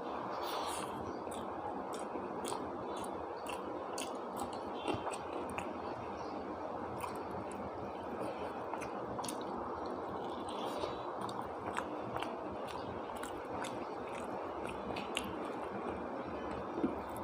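Close-miked chewing and eating sounds: a person eating khichuri with chicken curry, with frequent small wet clicks and smacks over a steady background hiss.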